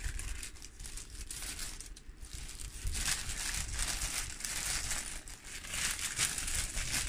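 Clear plastic bag crinkling as a folded canvas bin is pushed into it, the crackling growing louder from about three seconds in.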